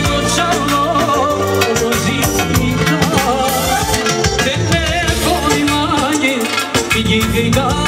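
Loud amplified live band music with a man singing through a microphone: a wavering, ornamented melody over a fast, steady beat.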